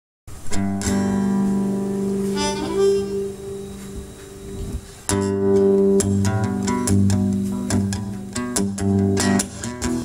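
Live blues band opening a song: acoustic guitar and electric bass playing, with long held reedy notes over them. Drums are not yet heard.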